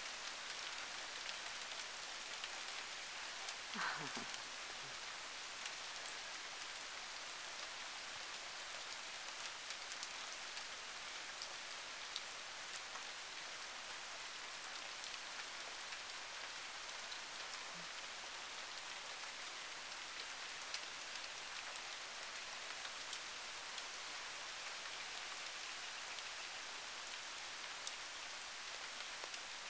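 Wet snow falling and pattering on surfaces: a steady hiss with scattered light ticks. About four seconds in, a brief sound slides down in pitch.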